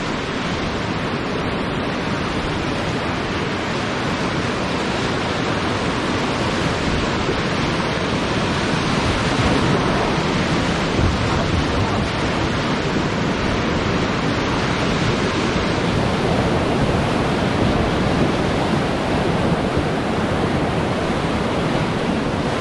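River whitewater rushing loudly and steadily around the raft, an even wash of water noise.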